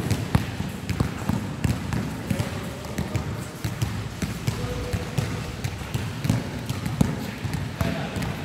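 Basketball being dribbled and bouncing on a hard court: irregular thuds, with players' voices under them.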